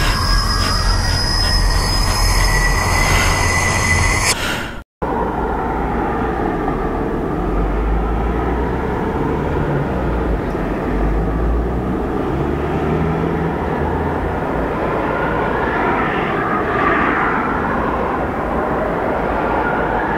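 Eerie horror-film soundtrack drone. At first it holds a few high tones and one slowly rising tone over a low rumble. It cuts out for an instant about five seconds in, then goes on as a steady, dense rumbling drone, swirling higher for a moment near the end.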